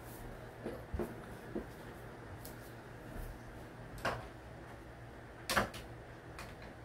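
Built-in wardrobe door being opened: a few separate knocks and clicks, the loudest about five and a half seconds in, with lighter knocks in the first two seconds.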